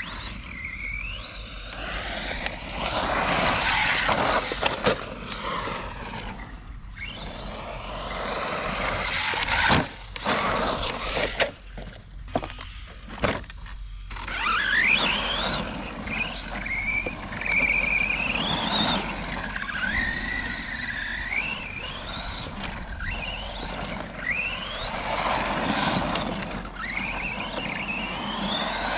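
Electric motor of a Redcat Camo TT Pro RC trophy truck whining up in pitch again and again as the throttle is punched, over the noise of its tyres on loose dirt. There are a few sharp knocks partway through.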